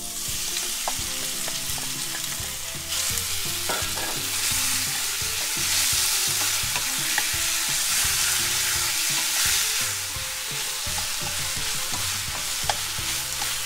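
Marinated beef strips sizzling in a hot oiled frying pan as they are tipped in and stirred with a wooden spatula. The sizzle gets louder about three seconds in, with a few light clicks of the spatula against the pan.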